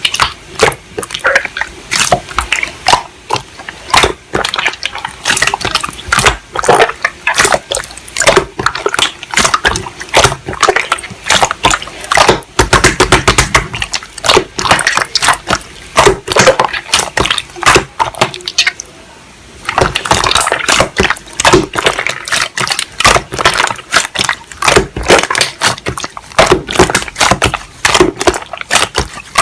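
Slime being squeezed and kneaded by hand, making dense, irregular wet clicks and pops as air pockets burst, with a brief pause about two-thirds of the way through.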